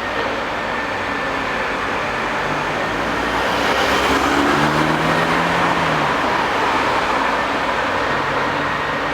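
Diesel engine of a large tracked foundation drilling rig running under load, its engine note rising and swelling for a few seconds in the middle before settling back.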